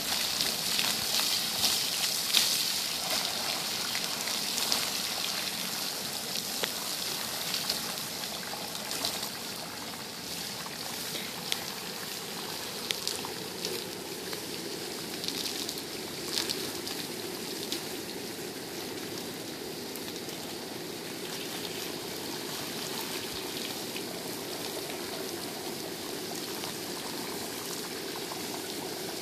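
Water from a garden hose spraying onto a bison's thick coat: a steady hiss and splatter with scattered sharp ticks of drops, louder for the first ten seconds or so, then steadier and softer.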